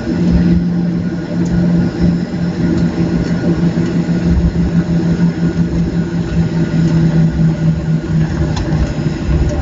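Cabin noise of a Boeing 737-700 taxiing: its CFM56-7B turbofans run at low taxi power with a steady low hum, over an uneven rumble from the landing gear rolling on the taxiway.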